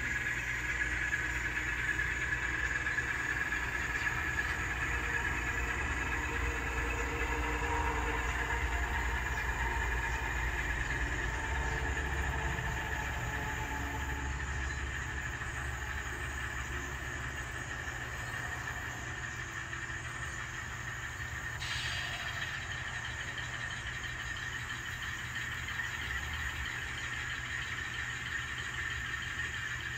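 A model Alco C420 diesel's ESU LokSound decoder plays a steady diesel engine sound through the locomotive's small speaker, a low rumble with a higher whine over it. It eases off slightly about halfway through, and there is one short click about two-thirds of the way in.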